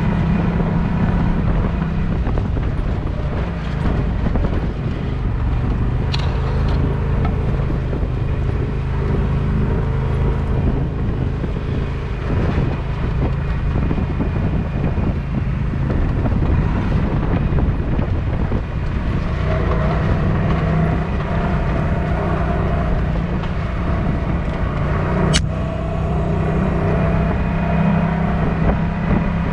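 UTV engine running while driving, a steady low drone that shifts in pitch now and then, with a sharp click about six seconds in and another a few seconds before the end.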